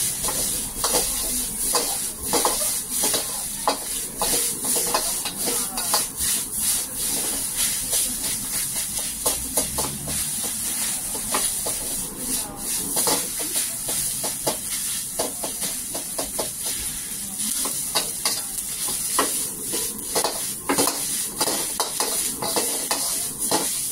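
A long metal ladle scraping and knocking against a wok as fried rice is stir-fried, with repeated strokes about two a second over a steady sizzling hiss of the food frying.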